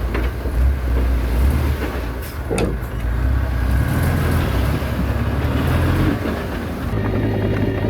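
Small diesel crawler bulldozer (Komatsu D21A) engine running steadily under load, with a couple of sharp metallic clanks. Near the end the engine note settles into a steadier hum.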